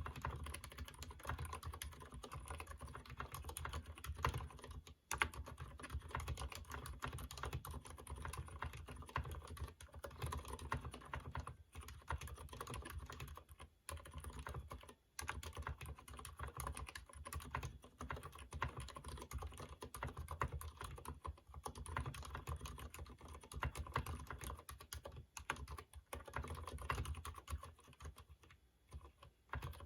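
Typing on a Durgod mechanical keyboard with Cherry MX Silent Red switches that have not been lubed: a steady run of muted keystrokes with a few short pauses.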